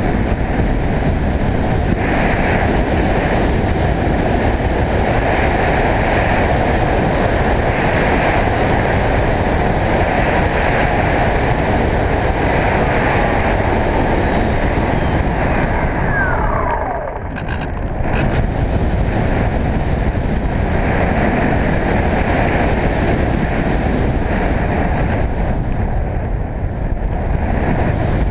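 Wind rushing over a GoPro camera strapped to the nose of a HobbyKing Bixler RC plane in flight, mixed with the plane's electric motor and propeller. About two-thirds through, a whine falls steeply in pitch and the noise dips briefly, then picks up again.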